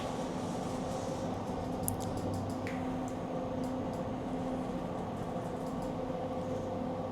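Elevator car travelling down: a steady mechanical hum with a low drone and a few faint clicks.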